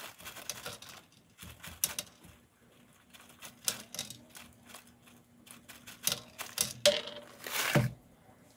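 Roasted chickpeas dropping a few at a time from a snack pouch onto a stainless steel scale tray, landing as scattered irregular clicks and clatters. There is a louder burst near the end.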